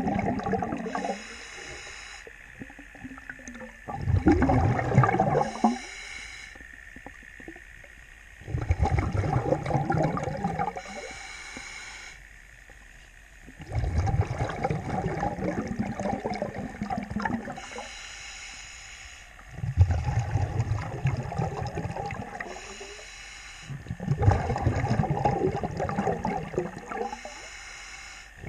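A diver breathing underwater through a regulator: the short hiss of each inhalation followed by a longer, louder burst of exhaled bubbles, repeating about every five seconds.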